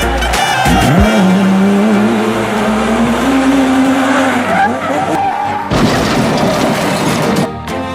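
Drift-car sounds: an engine held at high revs with tyres squealing and skidding, over background music, with a longer skid hiss near the end.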